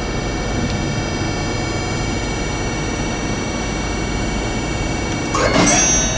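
Spindle of an Okuma & Howa Millac 438V CNC vertical machining center, driven by its 24-horsepower integrated motor, running unloaded at about 2,000 RPM with a steady whine of several high tones over a low hum. About five seconds in it gets louder and a new, higher tone comes in as the spindle is sped up to 4,000 RPM.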